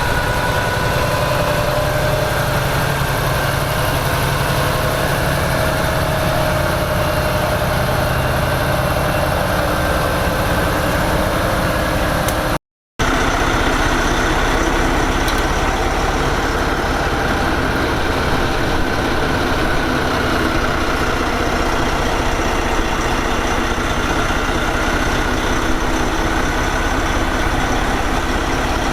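Heavy diesel machinery engine running steadily, with a brief break about thirteen seconds in.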